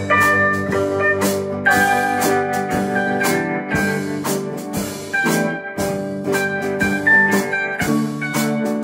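A small rehearsal band playing a slow country song: electric guitars over a drum kit keeping a steady beat.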